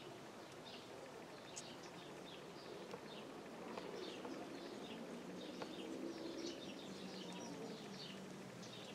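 Small birds chirping, many short high calls in quick succession, over a faint low steady hum.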